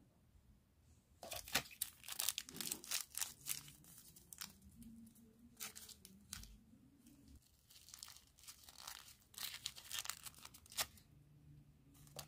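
Small plastic sticker wrapper being crinkled and torn open by hand, in several spells of sharp crackling.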